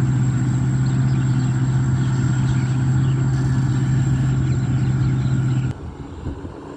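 Engine running steadily at constant speed with a strong low hum, cutting off suddenly near the end; a quieter, rougher engine noise carries on after.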